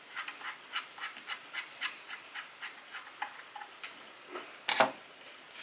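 A T6 Torx screwdriver turning a small drive mounting screw, making light, quick clicks about four times a second, with a sharper knock near the end.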